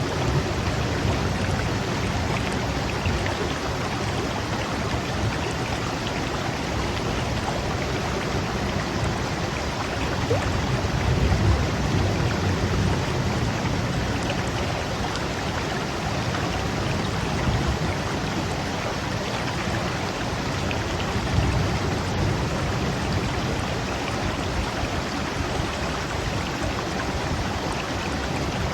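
Flowing water making a steady, continuous rush that holds even throughout, with slight swells in the low end.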